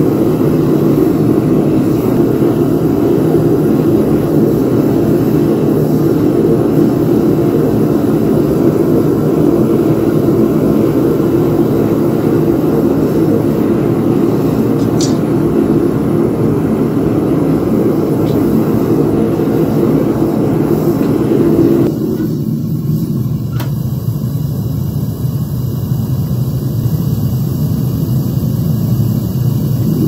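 Gas burner of a home-made furnace running steadily at full heat while copper melts in the crucible. About two-thirds of the way through, the noise becomes slightly quieter and duller.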